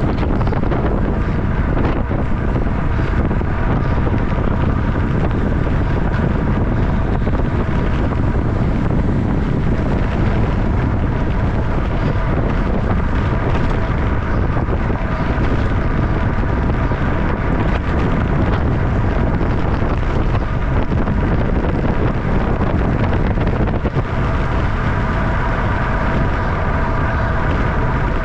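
Steady heavy wind rush on the microphone of a camera mounted on a road bike racing at about 26 to 29 mph. A faint steady whine sits under it and grows a little stronger near the end.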